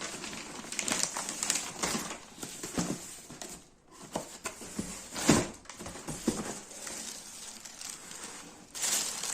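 Shoe packaging handled and opened by hand: irregular rustling, crinkling and light knocks, louder about five seconds in and again near the end.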